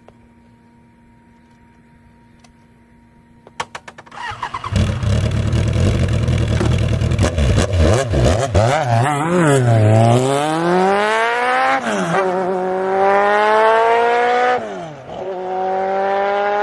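Suzuki GSX-R 1100's air/oil-cooled inline-four cranked on the electric starter, catching about four seconds in, then revved in a few blips. It then pulls away under hard acceleration, the pitch climbing through the gears with a drop at each of two upshifts.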